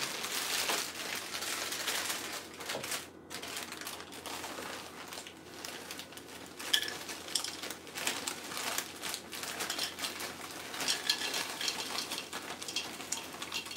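Dry Cinnamon Toast Crunch cereal being handled and poured into a bowl: rustling packaging and many small rattling clicks, with one sharper clink about seven seconds in.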